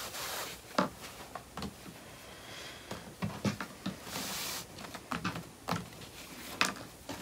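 Fabric apron and straps being handled on a cutting table: cloth swishing as the straps are pulled through the casings to even them out, with several light taps and knocks scattered throughout.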